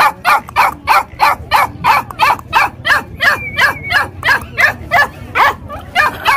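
Young black Bắc Hà puppy barking over and over in quick, even, high yaps, about three a second.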